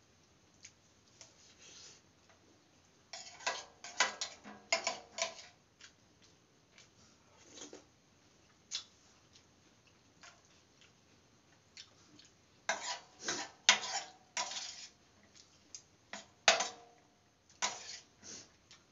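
Clinks and scrapes of hands and a spoon on a stainless steel divided thali plate, in two bursts of quick clattering with scattered single ticks between; one clink near the end rings briefly.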